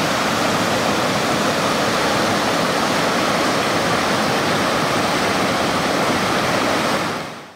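Mrežnica river water rushing, a loud steady rush that fades out near the end.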